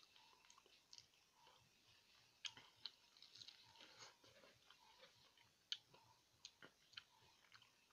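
Faint chewing and biting of a chunk of fresh pineapple, with irregular sharp mouth clicks and smacks.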